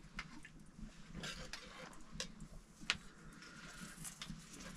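Quiet wood fire under an iron bread pan, with sparse sharp clicks and crackles at irregular intervals, one louder about three seconds in, over faint background voices.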